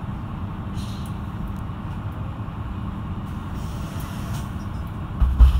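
A Mercedes-Benz Citaro II city bus heard from inside, its diesel engine running with a steady low hum. Near the end comes a brief, much louder low thump.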